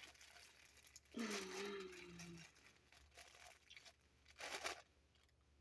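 Faint crinkling and tearing of a plastic squishy toy package being handled and opened, with a louder rustle near the end. A short, slightly falling hum from a person's voice about a second in.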